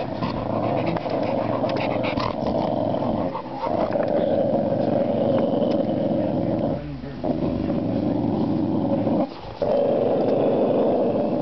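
A dog growling in long, continuous stretches, with short breaks about three and a half, seven and nine and a half seconds in.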